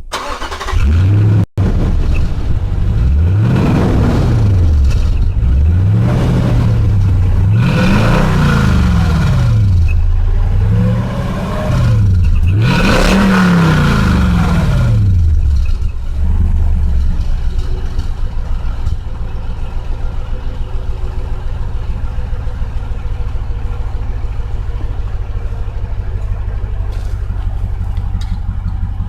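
Car engine fitted with a turbo whistle on the exhaust, revved several times, its pitch rising and falling with each blip, then settling to a steady idle for the second half.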